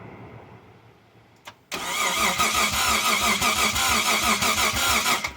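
Mitsubishi 3000GT VR-4's freshly rebuilt twin-turbo V6 being cranked over on its starter motor, an even, fast chugging with a steady starter whine, beginning about two seconds in and stopping abruptly after some three and a half seconds without the engine catching. It is being turned over to build oil pressure after the rebuild.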